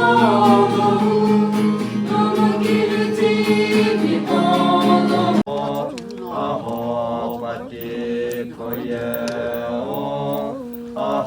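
Music with choral singing, held vocal notes over a steady low drone. About five seconds in, it switches abruptly to a different passage with sliding sung lines.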